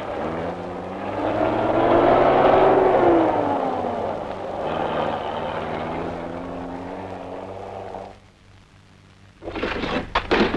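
A car engine driving past: its note rises and then falls as it goes by, loudest two to three seconds in, then runs on more steadily and cuts off about eight seconds in. Near the end comes a short burst of loud, sharp bangs.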